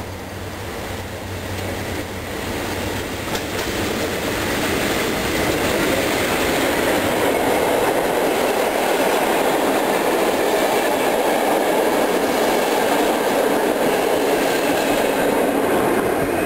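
PKP EU07 electric locomotive and its passenger coaches passing at speed. The noise builds over the first several seconds as the train approaches, then holds as a loud, steady rush of wheels on rail while the coaches go by.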